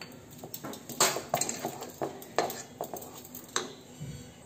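Wooden spatula stirring and scraping thick semolina halwa against a metal kadhai, a run of short scrapes and knocks about two or three a second.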